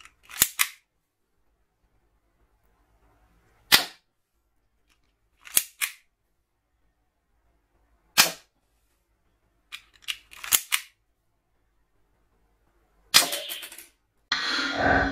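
M09-2 toy revolver water-gel blaster being cocked and fired single-shot, sharp snapping clicks a few seconds apart, some in quick pairs or clusters.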